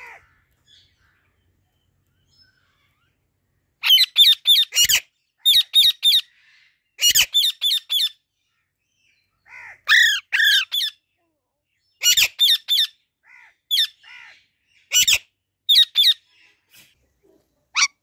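Young Alexandrine parakeet giving loud, harsh squawks in quick runs of three to five calls. The calls start about four seconds in and repeat every second or two.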